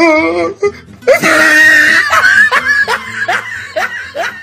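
A person laughing loudly and whooping: a loud cry about a second in, followed by a run of short, rising bursts of laughter.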